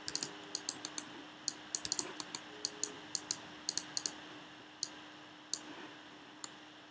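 Computer mouse and keyboard clicking irregularly, several clicks a second at first, then only one about every second, over a faint steady hum.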